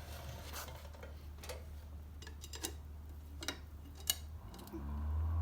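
Scattered light metallic clicks and taps of hand tools and brake parts on a motorcycle's rear brake caliper as the pistons are pushed back and the pads worked loose. A low hum comes in near the end.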